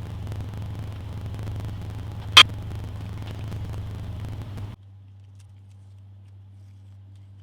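Steady noise with a low hum, broken by one sharp, loud click about two and a half seconds in. The noise cuts off abruptly after nearly five seconds, leaving a fainter steady low hum.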